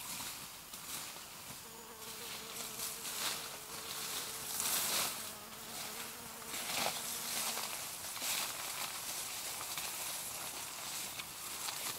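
An insect buzzing steadily from about two seconds in until near the eight-second mark. Under it, tall grass and vegetation rustle and swish in short bursts as a person wades through.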